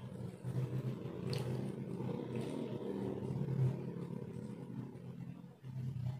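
A steady low motor-like rumble that swells and fades, with a few faint clicks of eating by hand.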